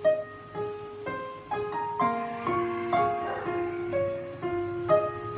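Yamaha PSR-550 portable keyboard played with a piano voice: a slow, flowing melody over repeated broken-chord notes, the notes held and overlapping.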